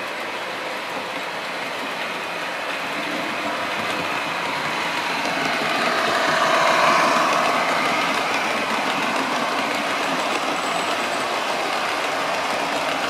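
OO gauge model train running past on the track, a steady rolling rumble of wheels and motor. It grows louder to a peak about seven seconds in, then stays even as the coaches roll by.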